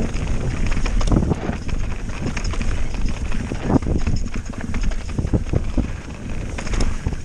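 Santa Cruz Nomad 4 mountain bike descending a rough trail: tyres clattering over dirt, rocks and snow, and the bike rattling with many quick, irregular knocks. Wind rushes over a helmet-mounted microphone.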